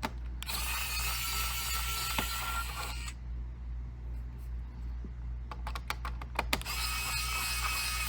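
Mini electric precision screwdriver running in two spells of whirring, about two and a half seconds each, backing screws out of a laptop, with a run of light clicks between the spells.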